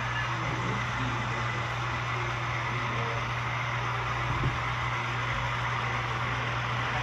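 HO-scale model trains running on a layout: a steady low hum over an even hiss of room noise, with one faint click about four and a half seconds in.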